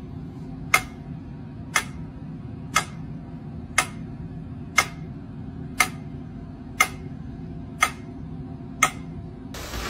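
Mechanical pendulum metronome ticking steadily, about one tick a second, nine ticks in all, over a low steady hum.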